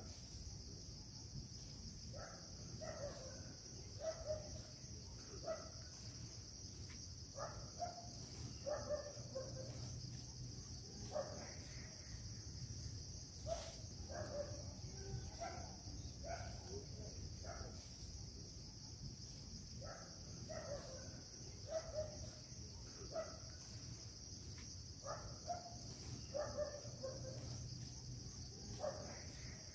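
Ambient insect chorus: a steady, high-pitched drone of crickets or cicadas, with short calls scattered through it.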